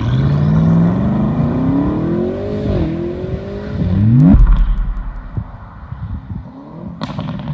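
Car engine accelerating hard, its pitch climbing with two brief drops, then a final quick rise that cuts off in a deep boom about four seconds in; a lower rumble follows.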